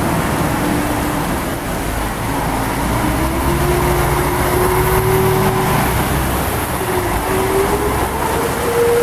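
A dump truck's engine running as it pulls past on a wet street, its pitch rising slowly as it accelerates, over a steady hiss of rain and tyres on the wet road.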